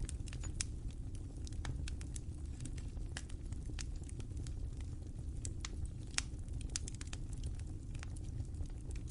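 Fire crackling, with irregular sharp pops and snaps over a steady low rumble; one louder pop comes about six seconds in.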